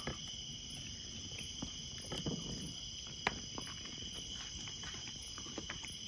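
Crickets chirring steadily in several high-pitched bands at night, with a few soft clicks and knocks, the sharpest about three seconds in.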